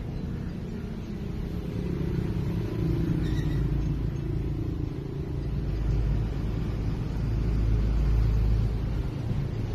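Low engine rumble of a nearby motor vehicle, growing louder about two seconds in and loudest shortly before the end.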